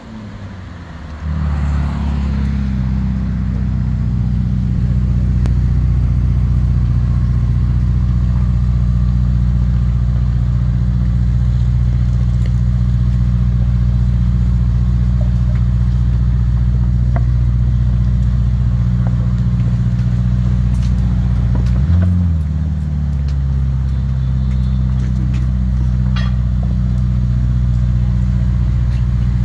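Ferrari SF90 XX Stradale's twin-turbo V8 idling steadily, heard close behind the tailpipes. About two-thirds of the way through, the pitch briefly rises and falls in one short blip of the throttle.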